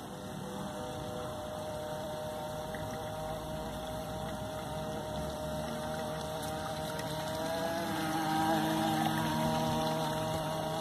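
Radio-controlled model speedboat's motor running: a steady whine that rises slightly in pitch and grows louder over the last few seconds as the boat comes closer.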